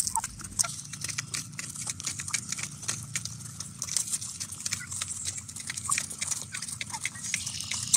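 Meat chickens pecking feed from a feeder trough: rapid, irregular taps of beaks on the feeder and grain, over a low steady background noise.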